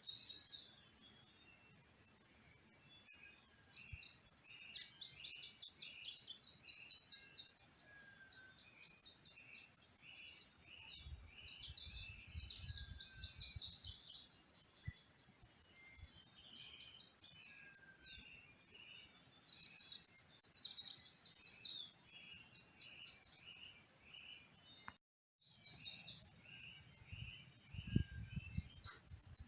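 Tropical forest dawn chorus: rapid high trills lasting several seconds each, repeating with short gaps, over scattered short whistled bird notes. Low rumbles come in about 11 seconds in and again near the end, and the sound drops out for half a second about 25 seconds in.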